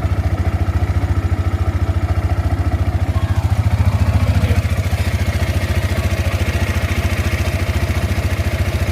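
Yamaha R15's single-cylinder engine idling with an even, steady beat just after starting, briefly picking up a little speed about three to four seconds in. The engine sounds different now, after a damaged oil seal near the coolant area that caused the earlier noise was replaced.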